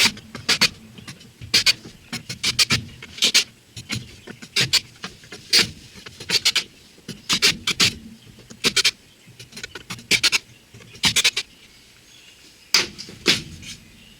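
Sharp, irregular knocks and taps on wood, roughly one or two a second and often in pairs, from the wooden Flow Hive roof being put together.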